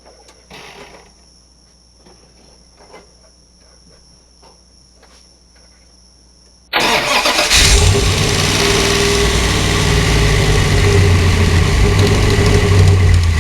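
A Dodge Dakota R/T's 408 V8 engine starting suddenly about halfway through, after a few faint clicks, then idling steadily. The owner suspects that a new noise in it is valve lifter tick.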